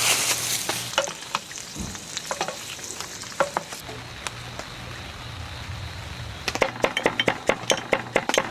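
Food sizzling in a hot pan, loudest at first and then settling to a quieter fry, with sharp pops and crackles that come quickly from about six and a half seconds in.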